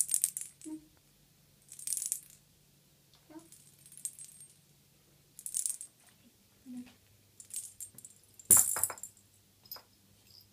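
A cat toy jingling in short metallic rattles, as it is shaken or batted, about every one to two seconds. The loudest rattle comes near the end with a dull thump.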